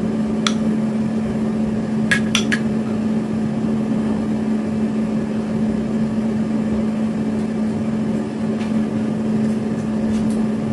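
A steady hum of a kitchen appliance, with a few short, light clinks about half a second and two seconds in.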